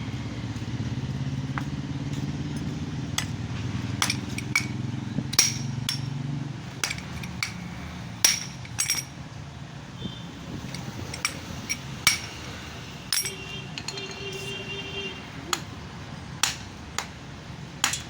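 Metal knocks and clinks, irregular and about once a second, from cutting open a refrigerator compressor's steel shell. A low steady hum runs under them and drops away about six and a half seconds in.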